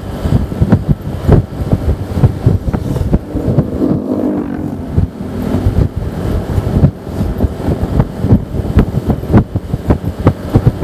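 Heavy wind buffeting on an action camera's microphone on a Honda Vario 125 scooter riding at speed, with the scooter's engine running beneath it. A steadier pitched drone stands out for about two seconds near the middle.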